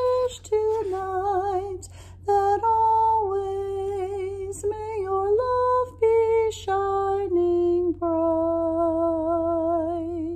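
A woman singing a slow, simple melody unaccompanied, note by note with a slight vibrato, ending on a long held note.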